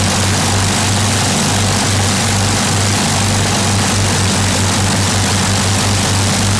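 A de Havilland Mosquito's two piston engines running steadily on the ground, propellers turning, giving a deep drone with a slow pulsing beat.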